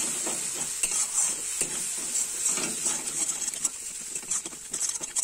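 Spice masala sizzling in a metal kadai while a metal spatula stirs and scrapes it in short, irregular strokes: the sauté-down (kasha) stage of cooking onion, tomato and ginger-garlic paste with ground spices.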